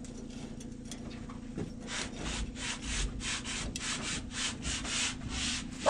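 Hand sanding on sheet-metal body panels: rhythmic back-and-forth scraping strokes, about four a second, starting about two seconds in, over a faint steady hum.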